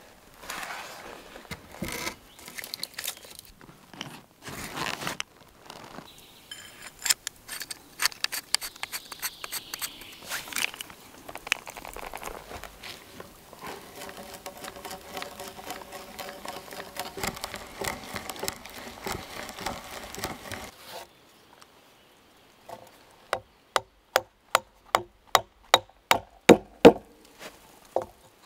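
A hand auger bores into a log, turning with crunching and creaking. After a short pause a hatchet's poll knocks a wooden peg into a drilled hole in the log: sharp, regular knocks about twice a second, getting louder.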